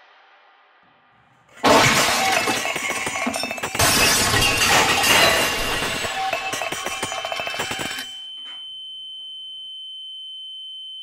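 Loud crashing and breaking, with glass shattering, for about six seconds, growing heavier about two seconds in. It cuts off and leaves a steady high-pitched ringing tone.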